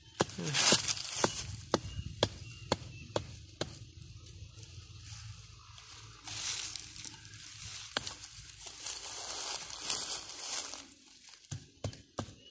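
Knife shaving thin bamboo strips: a few scraping strokes with scattered sharp taps and knocks of bamboo being handled.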